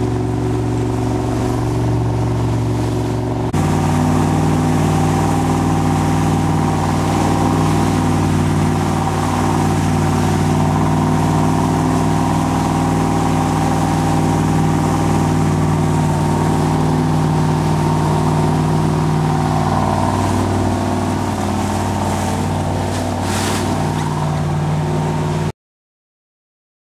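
Motorboat engine running steadily under way, its tone changing abruptly about three and a half seconds in. The sound cuts out to silence for a couple of seconds near the end.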